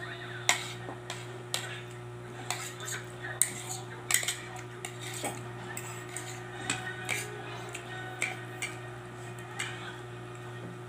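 Metal fork clinking and scraping against a plate while eating: irregular sharp clinks, the loudest about half a second in. A steady low hum runs underneath.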